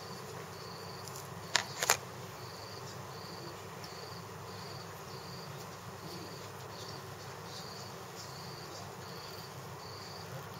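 Insect chirping, short high chirps repeating about twice a second, with two sharp clicks close together about a second and a half in.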